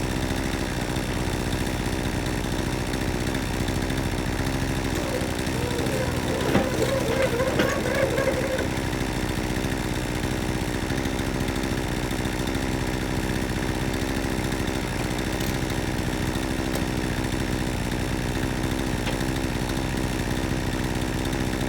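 An engine idling steadily, with a brief wavering higher tone over it about six to eight seconds in.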